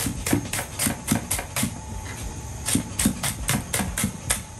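Chef's knife mincing garlic on a plastic cutting board: quick rhythmic knocks of the blade hitting the board, about four a second, with a short pause around two seconds in.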